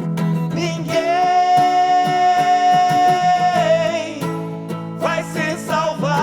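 Funk rock band music with guitar: a long lead note is held from about a second in until nearly four seconds, then bending, wavering notes follow.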